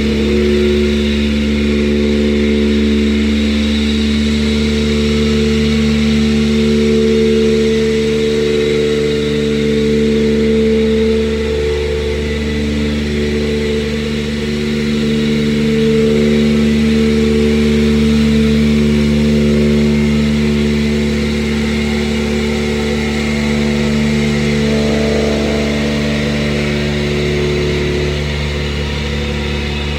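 Excavator's diesel engine running steadily up close, at an even speed with small shifts in pitch now and then.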